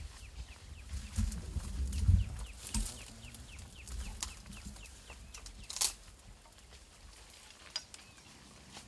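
A bird calling in a quick series of short chirps, about five a second, over low rumbling and rustling in the first few seconds. A sharp snap comes about six seconds in.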